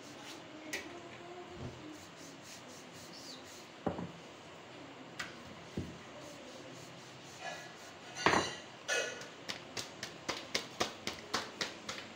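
Rolling pin working roti dough on a stone counter: rubbing with scattered knocks as the pin meets the counter. A louder clatter about eight seconds in, then a quick run of clicks near the end.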